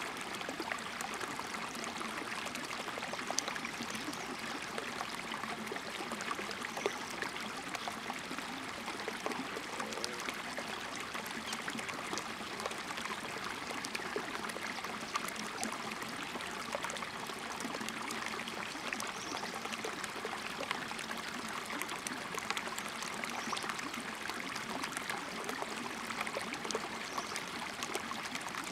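Shallow rocky mountain stream flowing and trickling over stones, a steady, even wash of water.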